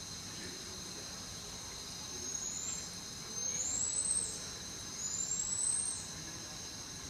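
Steady high-pitched cricket-like chirring, with three rising whistles about a second apart, each a bit under a second long and louder than the chirring.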